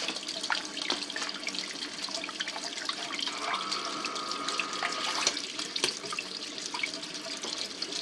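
Water splashing and churning in a sump pump crock as the front sump pump runs and pumps the water level down. A faint steady high tone sounds for about two seconds near the middle.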